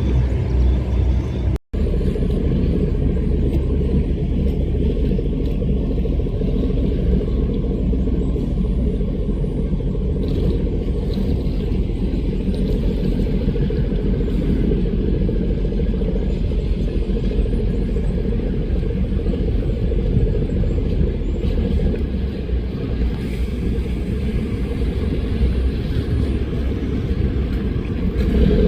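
Speedboat engines running steadily at speed: a loud, unbroken low rumble, cut by a split-second gap about two seconds in.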